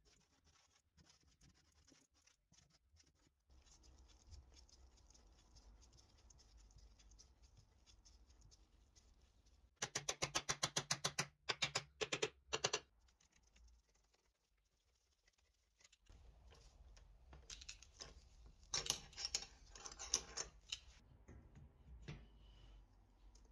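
Roulomat Senior 60 coin-counting machine being worked: its mechanism gives a rapid run of even clicks for about three seconds, then a second, rougher stretch of clicking a few seconds later.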